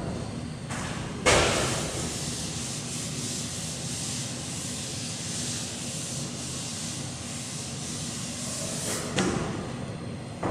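A chalkboard duster rubbing chalk off the blackboard in a steady scratchy wipe. It starts with a knock about a second in and stops with another knock near the end.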